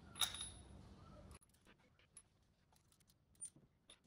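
A sharp metallic click with a brief ring from a ratchet wrench on the diesel injectors, then faint clicks and clinks of tools and metal parts being handled. A low hum cuts off about a second and a half in.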